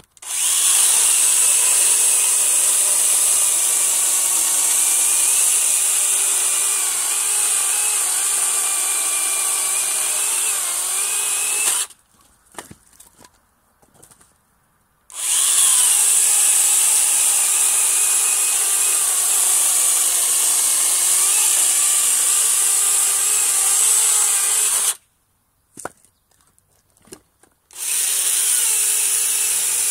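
Parkside PGHSA 20-Li A1 20 V cordless pruning saw (a battery mini chainsaw) cutting through logs three times: two long cuts of about eleven and ten seconds, then a third starting near the end. It runs steadily through the wood, which the owner says it handles easily without straining. In the short pauses between cuts there are a few wooden knocks as cut pieces are handled.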